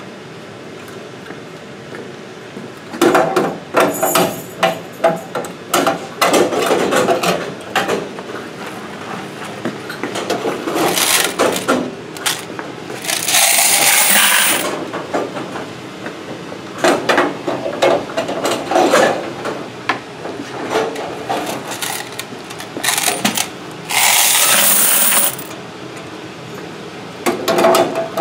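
Quarters pouring out of metal laundromat coin boxes into a bucket of coins: a few rushes of jingling coins lasting a second or two each, with clanks and rattles of the metal boxes being handled and tipped between them.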